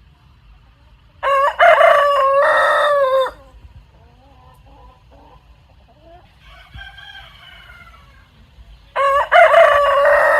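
Rooster crowing: two loud cock-a-doodle-doo calls of about two seconds each, the first about a second in and the second near the end, with fainter crowing or clucking between them.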